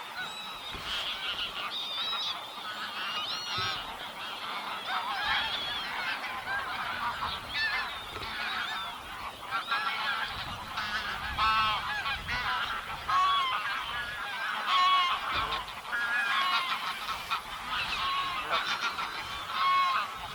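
A flock of geese honking: many short calls overlapping, one after another.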